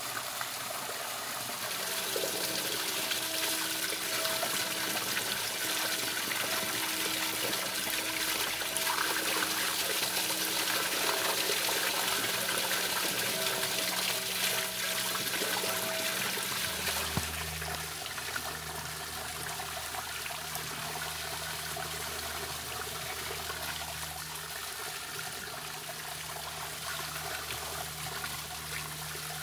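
Spring water running from a metal spout and splashing steadily onto wet paving stones and a drain grate. A faint low hum sits underneath and changes a little past halfway.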